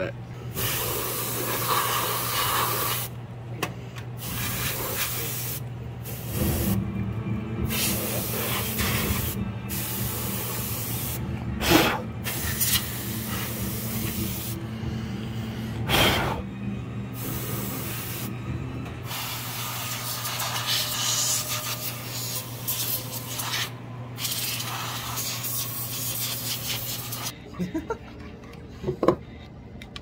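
Can of compressed-air duster sprayed through its straw nozzle in repeated hissing blasts a few seconds long with short pauses between, blowing dust out of a computer case. A few sharp clicks near the end.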